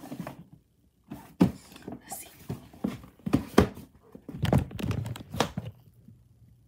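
Cardboard box being handled and set down: a run of irregular knocks and thumps, with rubbing and rustling from the box and the phone being moved between them.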